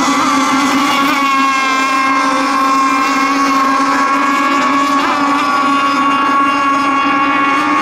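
Radio-controlled racing boats running flat out on the race course: a steady high-pitched whine, with several pitches sounding at once.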